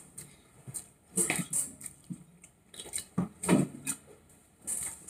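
Close-up eating sounds: a man chewing and smacking his lips over rice and curry eaten by hand, in a few short separate bursts, with a brief low murmur about three and a half seconds in.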